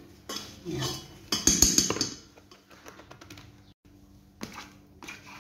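A plastic margarine tub knocked and scraped against a stainless-steel stand-mixer bowl as the margarine is emptied out: a cluster of quick clicks and knocks in the first two seconds, then a single knock later on.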